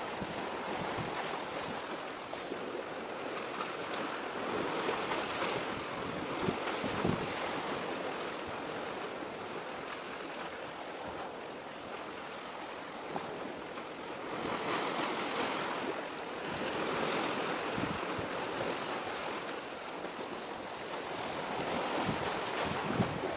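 Sea waves washing in, with wind rushing over the microphone. The hiss swells and eases every few seconds.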